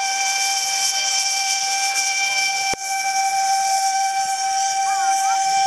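Steam locomotive whistle blowing one long steady note over the hiss of steam. It breaks off for an instant about halfway through, then sounds on at the same pitch.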